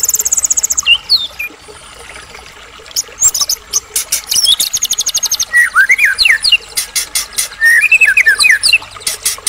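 White-rumped shama singing a varied song in full voice: fast, high trills, quick whistled notes sliding up and down, and rapid runs of sharp clicks, with a brief lull about two seconds in.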